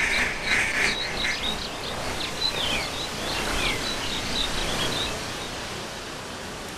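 Composite lake ambience: ducks quacking for the first second, then small birds chirping in short high calls until a few seconds before the end. All of it sits over a steady hiss of background noise.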